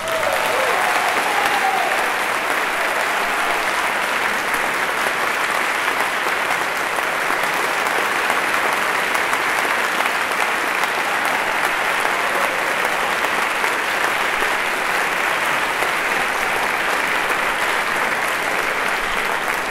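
Concert hall audience applauding steadily at the end of an orchestral vocal piece.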